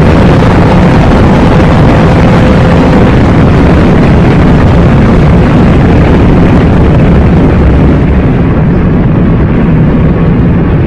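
Loud, overloaded rush of a car driven at very high speed, engine and wind noise blended into one dense roar with no clear pitch. It eases slightly and turns duller near the end.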